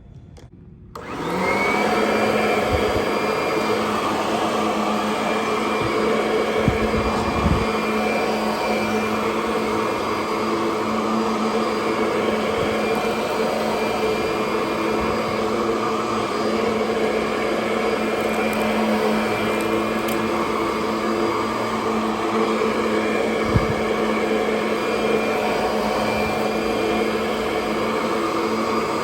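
Kirby Sentria 2 upright vacuum cleaner switched on about a second in, its motor spinning up with a quick rising whine and then running steadily. A few short low knocks are heard over the motor.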